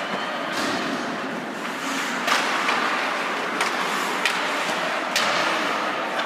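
Ice hockey play: a steady hiss of skates on the ice, with about five sharp knocks of sticks, puck and boards, the loudest about two seconds in.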